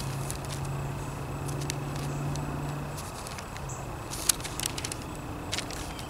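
Thin Bible pages being leafed through, rustling and crackling in a run of sharp clicks in the second half. Under it a steady low hum fades out about halfway.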